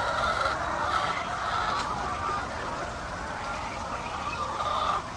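A flock of chickens clucking and calling, many voices overlapping without a break.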